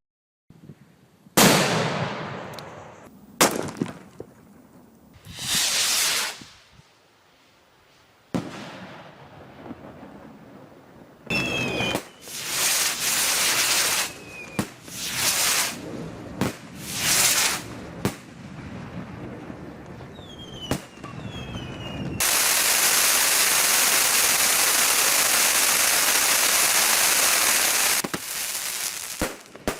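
Fireworks and firecrackers going off in a series: separate sharp bangs, each dying away, and a few short whistles about midway. Later comes a loud, steady hiss lasting about six seconds.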